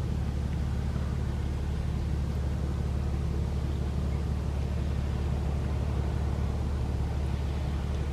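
Sea waves heard as a steady low rumble of surf, even throughout with no distinct surges or crashes.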